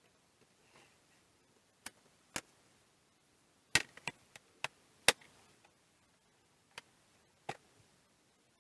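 About ten sharp clicks and knocks at uneven intervals, a few close together around the middle: small hard objects, tools or parts, being handled and set down on a workbench.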